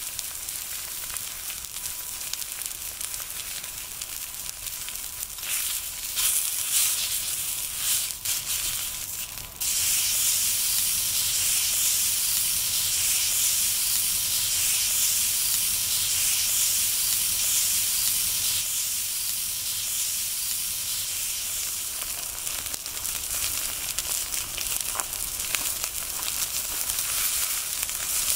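Marbled Miyazaki beef steak sizzling on a Yokozawa Teppan iron plate over a wood fire: a steady high hiss with small crackles. About ten seconds in, the sizzle suddenly gets louder as the steak is turned over onto its raw side.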